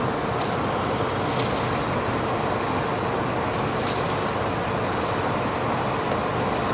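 Steady rumble and hiss of a fire truck's diesel engine idling, with a constant hum.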